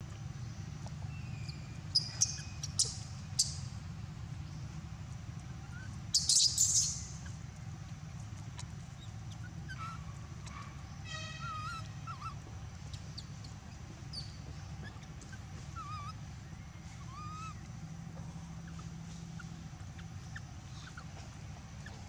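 Outdoor ambience with a steady low hum and scattered short animal calls: a few sharp high chirps about two seconds in, a loud noisy call about six seconds in, then a quick rattle of ticks and small squeaky calls later.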